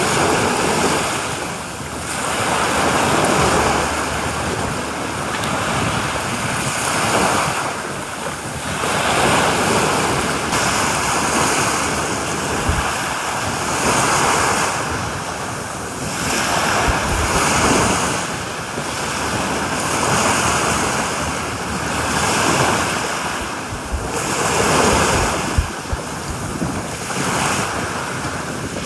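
Sea waves breaking and washing onto a beach, the surf swelling and fading every few seconds, with wind gusting against the microphone in a few low thumps.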